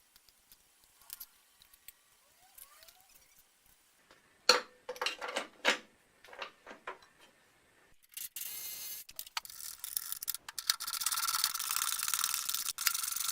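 Light clicks, then a run of sharp metallic knocks and clicks from tools on metal parts, followed about eight seconds in by a steady hiss with brief breaks.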